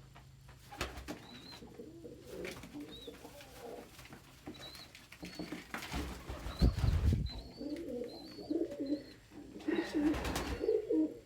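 Domestic pigeons cooing, a cock pigeon defending a nest box that he claims. Two brief noisy rushes come about six and ten seconds in.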